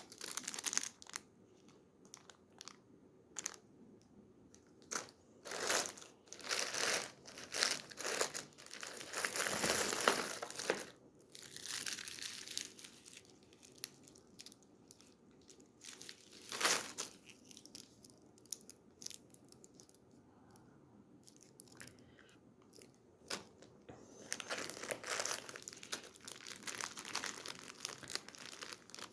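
Wrappers of candies and chocolates crinkling and tearing in irregular bursts as they are handled and opened, with a quieter spell in the middle.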